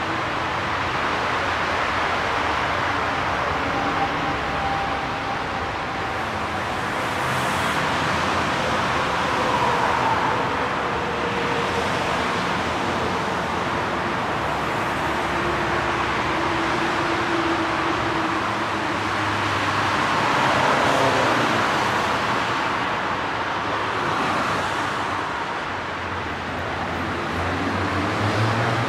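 Steady rush of dense motorway traffic, swelling and easing as vehicles pass. About two-thirds through, one passing vehicle's pitch falls away.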